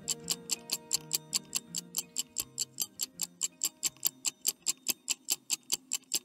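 Stopwatch ticking sound effect for a quiz countdown timer: rapid, even ticks about five a second over soft background music.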